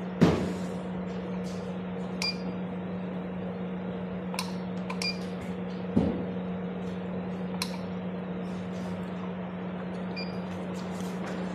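A 980 nm laser machine running with a steady electrical hum, marked by several short high beeps and clicks and two louder knocks, near the start and about halfway through.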